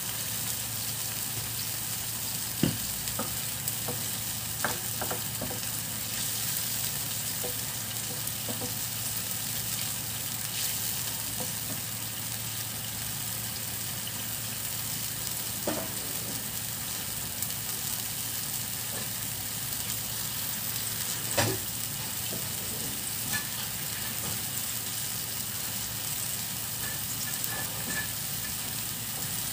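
Soy-ginger sauce bubbling at a rolling boil in a frying pan: a steady sizzling hiss. A few sharp knocks cut through it, the loudest about two and a half seconds in and about twenty-one seconds in.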